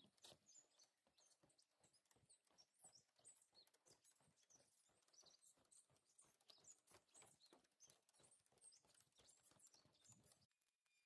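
Near silence: very faint footsteps knocking on the planks of a wooden boardwalk, a few per second, with faint high chirps over them, stopping just before the end.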